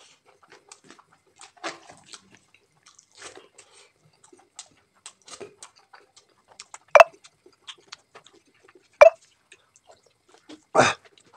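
Close-up wet eating sounds: chewing, lip smacks and fingers squishing rice and curry, in short scattered bursts. Two sharp, loud clicks about two seconds apart in the second half, and a louder brief noise near the end.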